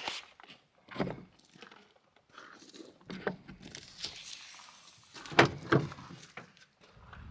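Knocks and thunks of things being handled, a door or lid among them, with a soft rustling hiss about four seconds in and the loudest pair of thunks just after.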